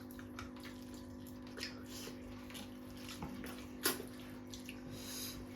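Quiet eating sounds: scattered soft, wet clicks and smacks of chewing and eating rice and goat meat curry, with one sharper click just before the four-second mark. A steady low hum runs underneath.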